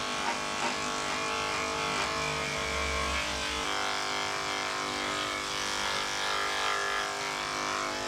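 Electric pet grooming clippers fitted with a #10 blade running steadily while shaving matted fur. The motor hum shifts slightly in pitch about three and a half seconds in.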